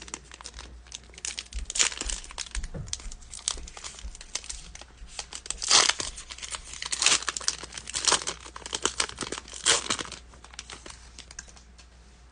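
Plastic trading-card pack wrapper being crinkled and torn open: a long run of crackling rustles with several louder tearing bursts, dying away about eleven seconds in.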